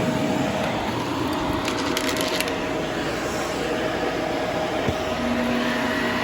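Shark ZU632 Powered Lift-Away upright vacuum running steadily, with a brief crackle of hard debris rattling through it about two seconds in. About five seconds in, a new, higher whine joins the motor sound.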